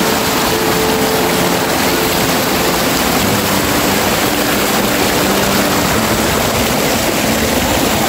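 River water rushing, a loud and steady, even rush.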